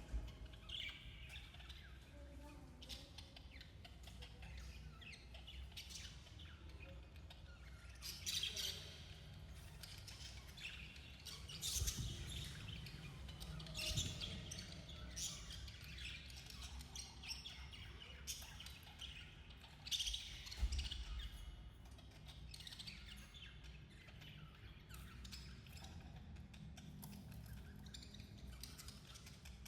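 Budgerigars chirping and chattering in short, scattered calls, with a few low thumps.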